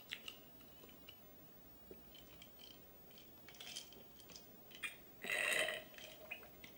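Quiet sipping through a metal straw from a glass jar, with small mouth clicks and swallows, then a short burp a little past five seconds in, the loudest sound here.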